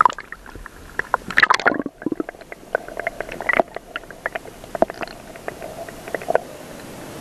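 Muffled underwater sound heard through a submerged camera: water moving, with many scattered sharp clicks and crackles and a louder rush of water about a second and a half in, over a faint steady hum.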